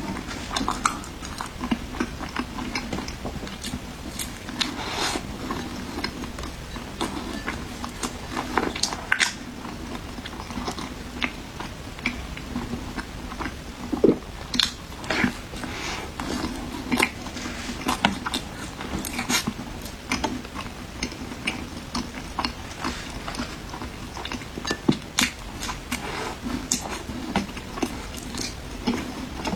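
A person chewing and biting food close to the microphone, with many irregular wet mouth clicks and smacks.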